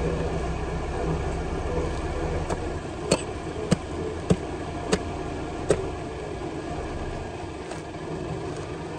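Hatchet chopping at a mass of tree roots blocking a manhole: about six sharp strikes roughly every half second, starting about two and a half seconds in, then two fainter strikes near the end. An engine runs steadily underneath.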